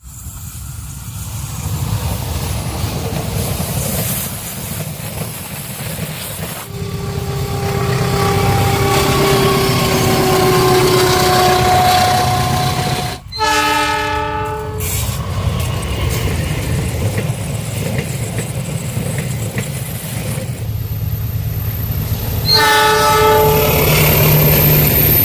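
Diesel locomotive hauling a passenger train up a grade, its engine rumbling steadily under load. A drawn-out, slowly falling tone runs for several seconds. The multi-note horn sounds twice, about halfway through and again near the end.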